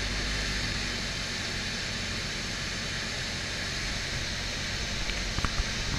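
Cessna 172 cabin noise on final approach: a steady drone from the piston engine and propeller under a broad hiss of airflow. A few short knocks come near the end.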